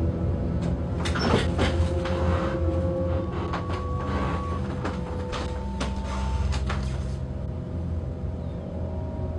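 Knocks and creaks of someone getting up from an office chair and walking off across a wooden floor, over a steady low hum. A few long held tones sound in the middle.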